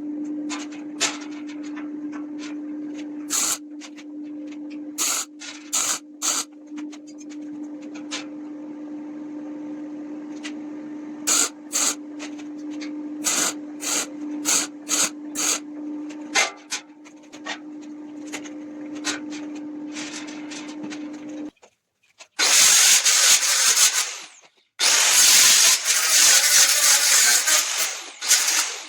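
Workshop sounds: a steady hum with scattered knocks and clicks of wood and tools being handled, then a power tool running loudly in two bursts over the last seven seconds.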